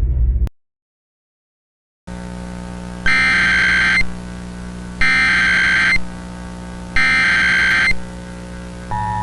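Emergency Alert System SAME header: three raspy digital data bursts about a second long and a second apart, over a steady electrical hum. Near the end the EAS two-tone attention signal begins. Before that, a rumbling music sting ends abruptly and there are about one and a half seconds of silence.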